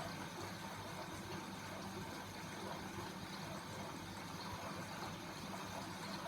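Grundig washing machine running on a wash cycle: a steady low hum with water moving inside.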